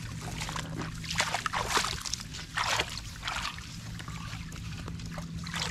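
Shallow field water splashing and sloshing irregularly as hands grope through it for fish, with a steady low hum underneath.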